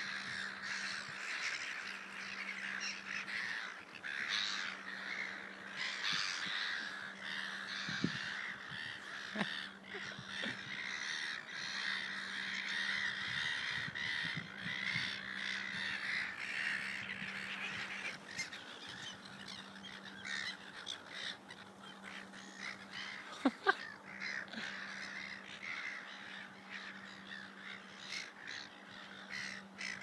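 A large flock of gulls calling all at once, many overlapping squawks, over a steady low hum. A sharp knock comes about eight seconds in, and two more close together after about twenty-three seconds.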